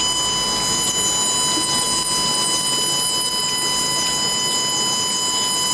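Wedge-wire screen welding machine running: a steady electrical hum and high whine with a fast, continuous high crackle.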